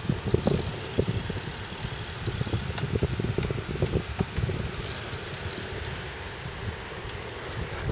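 Wind buffeting the microphone of a camera riding along on a road bicycle, a gusty low rumble over the hum of tyres on pavement, with a few small knocks from the bike going over bumps.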